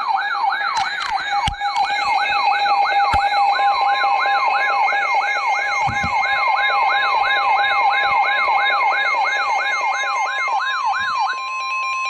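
Electronic siren in a fast yelp, its pitch sweeping up and down about three times a second, layered with steady alarm tones. The yelp stops near the end, leaving a steady tone.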